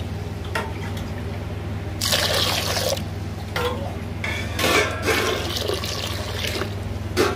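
Water splashing and sloshing in an aluminium pressure cooker holding lentils and tomato pieces, as a hand swishes through it and water goes in, in several separate bursts.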